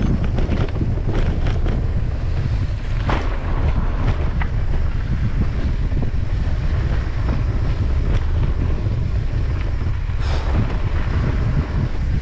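Wind buffeting the microphone of a camera on a descending mountain bike, with the bike rattling and clattering over the rough dirt trail. A few sharper knocks stand out, about three seconds in and again near ten seconds.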